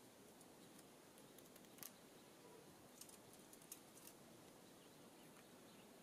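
Near silence broken by a handful of faint, sharp clicks scattered through the middle: birds pecking at a hard seed block.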